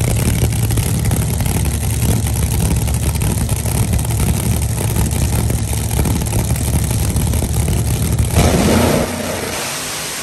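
Big-block V8 drag car running steadily at the starting line, loud and low, then launching about eight and a half seconds in: the engine note rises sharply and quickly fades as the car pulls away down the strip.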